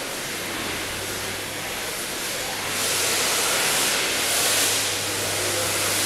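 Steady indoor background noise: an even hiss with a low hum underneath. The hiss grows louder about three seconds in.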